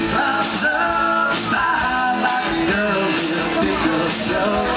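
Live country-rock band playing, with a man singing over electric guitars and drums.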